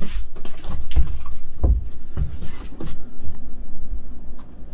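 An earthquake tremor shaking the room: low rumbling with irregular heavy thuds and rattling, about one or two knocks a second.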